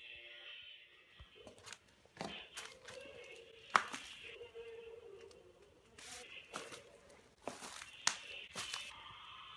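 Rustling and crinkling of hanging strands brushed aside as someone pushes through them, in a string of irregular sharper swishes, the loudest a little under halfway. A faint wavering tone runs underneath.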